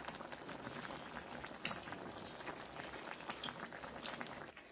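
Pork bulgogi hot pot simmering in a pan on a portable butane burner: a steady crackle of bubbling broth. A single sharp click stands out about a second and a half in, with a smaller one near the end.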